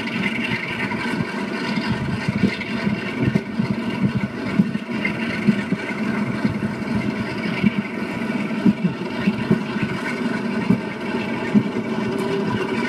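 Diesel locomotive 45060 'Sherwood Forester', a Class 45 'Peak', running steadily while hauling its train, with wind and irregular clicks from the wheels and track, heard played back through laptop speakers.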